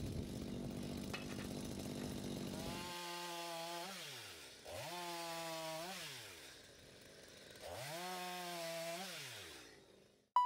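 Two-stroke Stihl chainsaw running. For about the first three seconds it makes a rough, noisy sound; then its engine is revved to a high steady pitch and let fall back three times before fading out.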